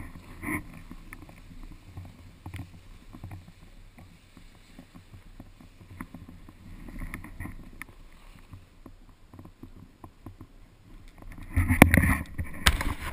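Edges sliding and scraping over packed snow during a run down a ski slope, with a steady patter of small ticks from the snow surface. The scraping swells a few times and is loudest about a second before the end, as the rider leans into a hard turn.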